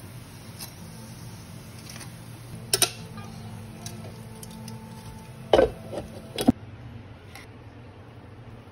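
Metal tongs clacking against a pot and a mesh strainer while deep-frying pork belly is turned and lifted out of hot oil, over a light hiss of frying. Sharp clacks come about a third of the way in and again, loudest, about two-thirds in, when the hiss cuts off abruptly.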